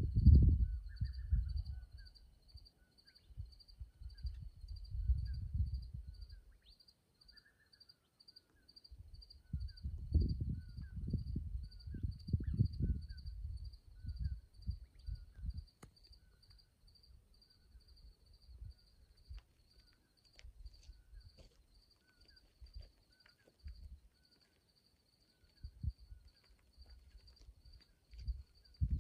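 Desert night insects, crickets or similar, chirping in a steady high pulse of about two a second, with fainter short chirps repeating lower down. Low rumbling gusts rise and fall over them, loudest near the start and again about ten seconds in.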